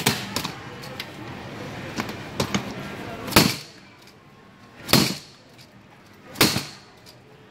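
Three loud impacts, evenly spaced about a second and a half apart, each dying away quickly, with lighter knocks and clicks in the seconds before them.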